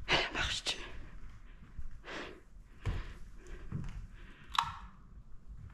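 Scattered knocks, clicks and scuffs of people moving about, with a breathy hiss about two seconds in and one sharp knock about four and a half seconds in.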